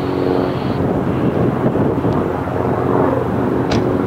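Jet airliner engines running on the flightline, a steady noise with a held droning hum, and a short click just before the end.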